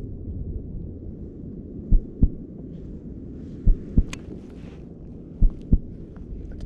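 Heartbeat sound effect: three double thumps, a pair about every 1.7 seconds, over a low steady rumble.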